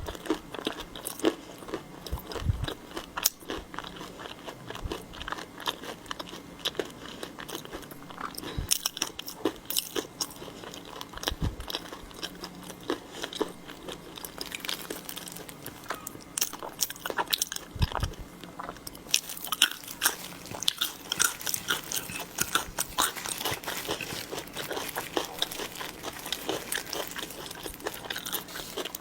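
Close-miked eating of seafood: sharp crunching bites and wet chewing, in many quick clicks that grow denser and more crackly in the last third.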